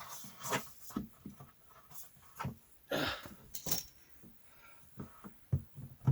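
Scattered light knocks, scrapes and rustles of handling as an electrical pigtail cord is fed through a hole into a battery box.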